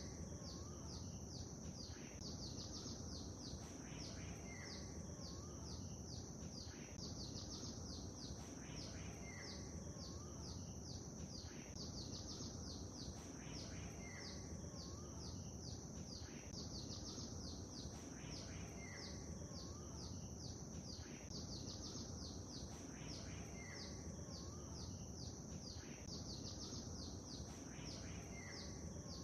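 Lake ambience: a steady low rush of water under many rapid high bird chirps, with a short bird call recurring about every two and a half seconds.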